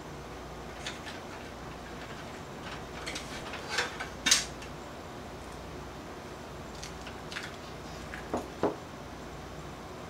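Light metallic clicks and clatter of a small steel computer case's parts being handled and pulled out, with a few sharper knocks: the loudest about four seconds in and two more close together near the end.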